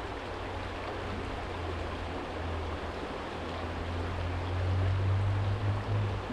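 Small stream flowing over a stony bed, with a low hum of distant traffic underneath that grows louder about four and a half seconds in and fades out near the end.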